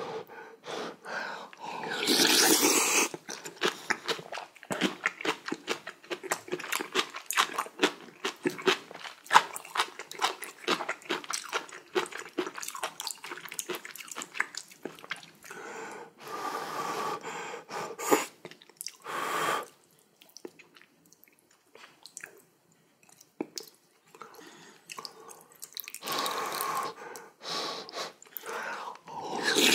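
Close-miked eating sounds of a person having seaweed soup with rice and kimchi: steady wet chewing with many quick small clicks, broken by a few louder slurps of hot soup.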